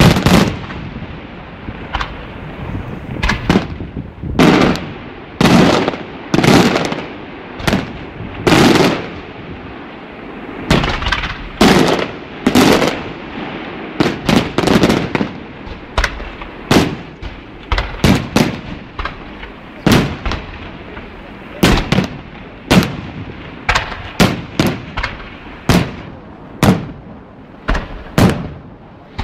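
Festa fireworks show: a long, irregular series of loud firework bangs, sometimes several in quick succession, each followed by a rumbling echo.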